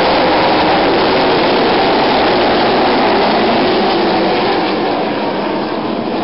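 A field of full-bodied ARCA stock cars racing past on a dirt oval, their V8 engines at racing speed blending into one loud, dense engine noise. The sound eases off a little about four and a half seconds in as the pack moves away into the turn.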